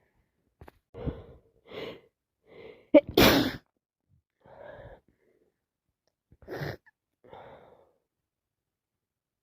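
A woman's sneezing, from a sinus infection with allergies. A few quick catching breaths build up to a loud sneeze about three seconds in, then after more breathing a shorter second sneeze comes a few seconds later.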